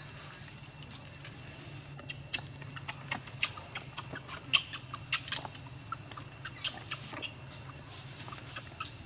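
Newborn macaque suckling at its mother's nipple: an irregular run of quick wet clicks and smacks, starting about two seconds in and thinning out after about seven seconds, over a low steady hum.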